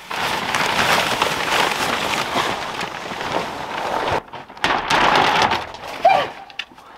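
Thin black plastic sheeting being crumpled and gathered up by hand: a dense crinkling rustle for about four seconds, a brief pause, then a second burst of crinkling.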